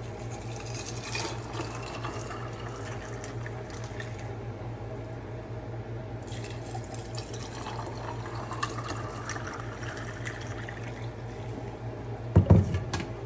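A drink poured from a glass pitcher into glasses of crushed ice, splashing steadily, with the pitch rising as a glass fills. A loud thump near the end.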